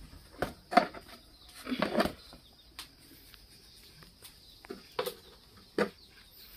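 Handling noises as salt is added to flour: a plastic salt packet rustling and a few short, sharp knocks and clicks, loudest around the first two seconds.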